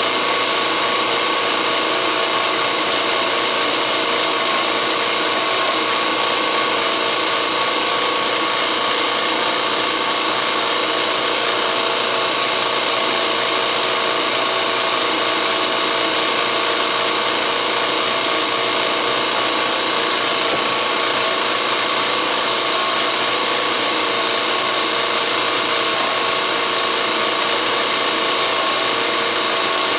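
Electric drill press running steadily, drilling holes in steel, with a constant whine and no break.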